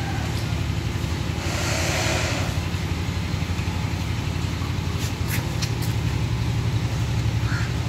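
Steady low hum of an engine idling, unchanged throughout, with a brief hiss about two seconds in and a few faint clicks around five seconds.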